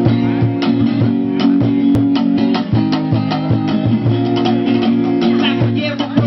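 Instrumental hip-hop beat for a freestyle rap: steady drum hits over held bass notes, with a guitar line.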